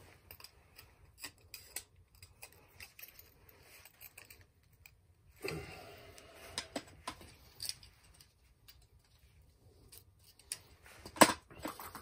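Scattered light clicks, rattles and rustles of tools and small parts being handled, with one sharp click near the end.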